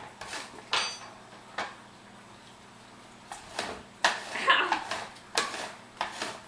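Kitchen clatter: a string of irregular clinks and knocks of dishes and utensils being handled on a countertop, with a lull of about a second and a half roughly two seconds in.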